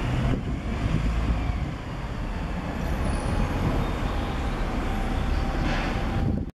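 Road traffic driving over a railway level crossing one after another: an open-top double-decker bus, then a van, then a car.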